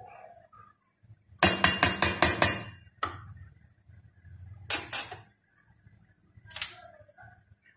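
A spoon clinking against a stainless steel bowl: a quick run of about eight taps, then two shorter clatters, as milk powder is knocked off the spoon into the bowl.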